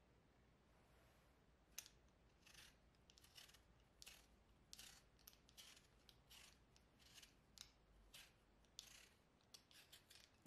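Vegetable peeler scraping strips of skin off a raw potato, in short strokes about two a second that begin about two seconds in and come quicker near the end.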